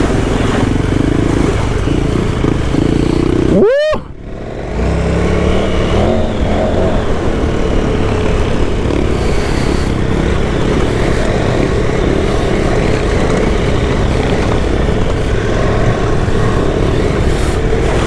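Motorcycle engine running under way on a dirt track, with wind rumble on the helmet microphone. About four seconds in there is a quick rising chirp, then a brief dip in the sound.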